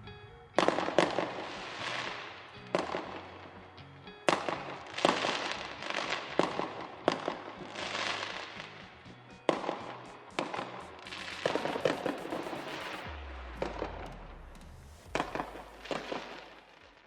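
Fireworks going off: about fifteen sharp bangs at irregular intervals, each trailing off into crackle.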